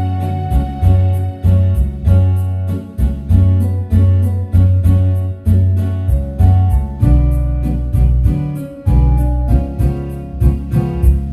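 Music with a steady beat and deep bass notes.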